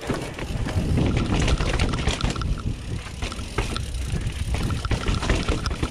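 Downhill mountain bike ridden fast over stone steps and wooden ramps: steady rushing wind on the camera's microphone, with many sharp rattles and knocks from the bike and tyres hitting the rough ground.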